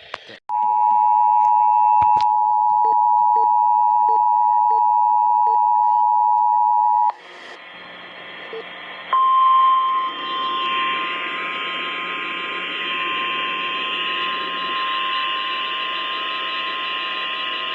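Emergency Alert System two-tone attention signal: a loud, steady dual tone held for about six and a half seconds that cuts off into radio hiss. About nine seconds in, a single slightly higher alert tone starts, the NOAA Weather Radio warning alarm, loud at first and then fainter under static.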